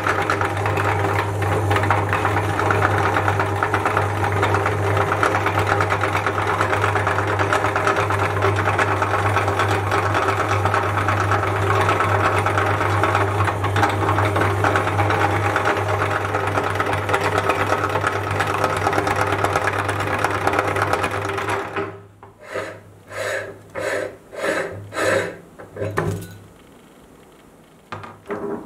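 Motor-driven meat grinder running steadily with a low hum while it forces strawberry ice cream cones through its cutting plate. The motor cuts off about three quarters of the way through, followed by a handful of short knocks and clanks.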